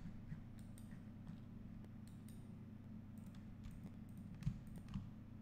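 Scattered faint clicks of a computer mouse and keyboard keys while editing, over a steady low electrical hum.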